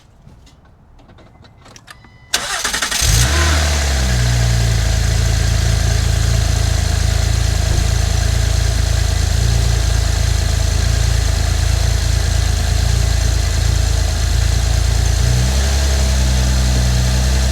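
A 2009 Honda Accord's 3.5-litre V6 is started: a few faint clicks, then about two seconds in the starter cranks and the engine catches at once and settles into a steady, somewhat high idle, which shifts slightly near the end. This is the first start after fitting an oil catch can, with the owner watching for new vacuum leaks.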